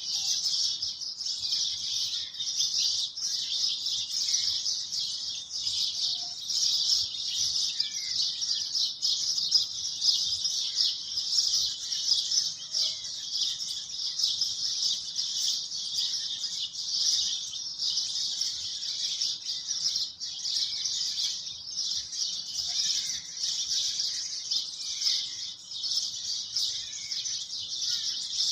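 A dense, steady chorus of high chirping birds, with fainter, lower single chirps now and then.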